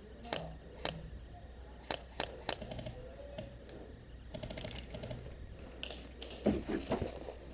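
Airsoft guns firing: single sharp cracks spaced out over the first few seconds, a quick burst of shots around four and a half seconds in, and louder cracks near seven seconds.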